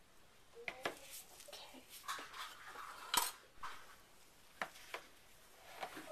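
Scattered clinks and knocks of soapmaking tools: a spatula tapping and scraping against a plastic pouring jug and a plastic soap mold, and the jug being set down on a wooden counter. The loudest knock comes a little past the middle.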